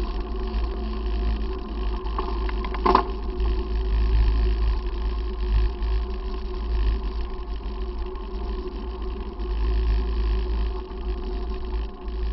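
Wind and road rumble on a bicycle-mounted camera while riding along a road, a heavy low buffeting with a faint steady hum over it. A single sharp knock comes about three seconds in.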